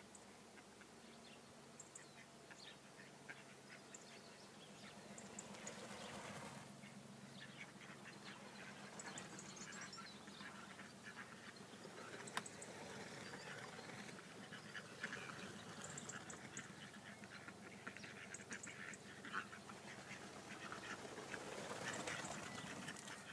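Mallard ducks quacking faintly and on and off as the flock flies in and lands, the calls growing louder near the end.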